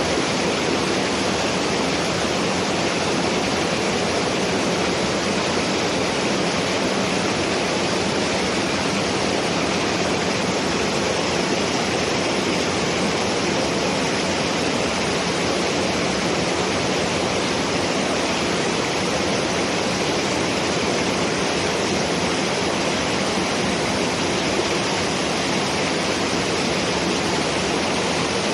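Mountain waterfall pouring, a steady, unbroken rush of falling water.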